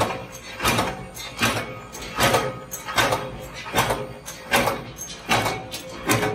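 Flywheel-driven mechanical power press stamping pliers blanks from steel strip: a sharp metallic clank with each stroke, about every three-quarters of a second, in a steady rhythm.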